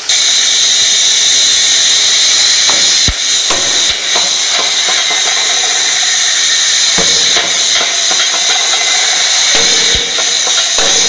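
Loud steady hissing at a hot-forging press holding a glowing steel ring, with several sharp metal knocks scattered through it.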